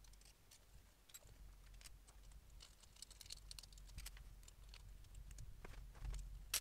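Faint scattered clicks and taps of hands handling the aluminium frame and parts of a diode laser engraver kit during assembly, with one sharper click near the end.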